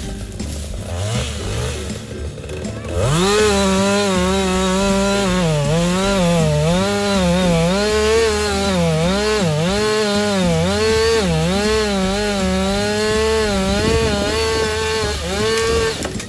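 Stihl two-stroke chainsaw running at high revs, starting about three seconds in; its engine note dips and recovers again and again, as the saw is throttled or loaded in the cut.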